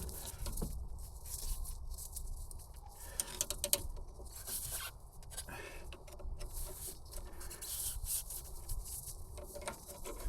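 Irregular scraping, rustling and a few sharp clicks of hands working a handbrake cable into place under a car, over a low steady rumble.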